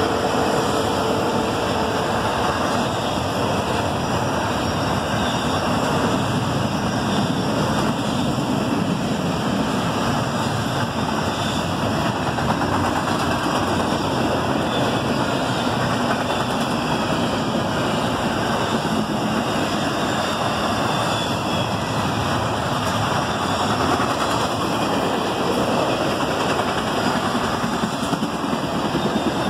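Intermodal freight train cars rolling past, with the steady rumble and clatter of steel wheels on rail. The tail of the train horn fades out in the first couple of seconds.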